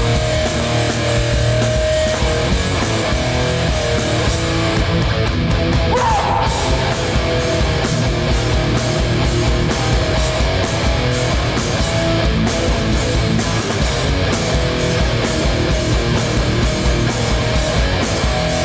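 Live hardcore punk band playing at full volume: heavy distorted electric guitars and drums, with a steady driving beat from about four seconds in.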